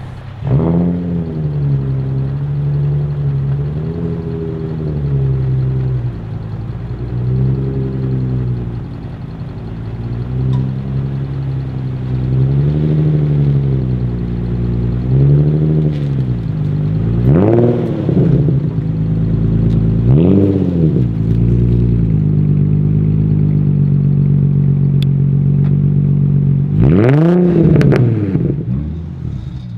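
Nissan 350Z's V6 engine running through an aftermarket exhaust, with the throttle blipped over and over: gentle swells at first, then several sharp revs in the second half, the strongest near the end.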